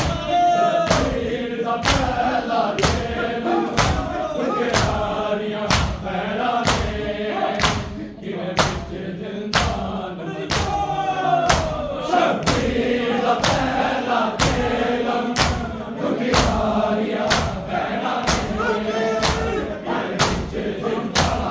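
Mourners chanting a nauha together while beating their chests (matam) in unison. The hand strikes land as sharp slaps about twice a second under the chanted lament.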